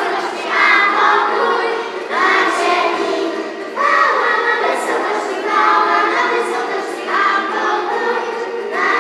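A group of young children singing together in short phrases, over a musical accompaniment.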